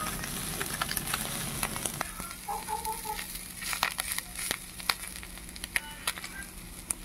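Small whole fish frying in oil on a flat iron pan: a steady sizzle with frequent sharp pops and crackles of spitting oil.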